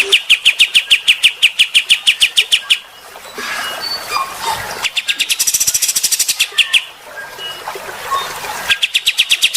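Recorded songbird calls: fast rattling trills of evenly repeated high chirps, about eight a second, broken twice by spells of scattered chirps and twitters, the trill returning near the end.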